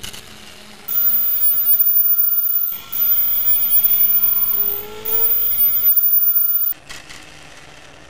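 Loud mechanical whirring noise in three bursts of about two seconds each, each cutting off abruptly, with a steady whine running through them.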